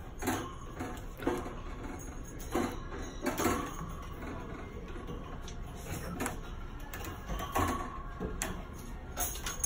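Light, irregular clicks and rattles of wire cage doors and latches, with a faint murmur of voices behind.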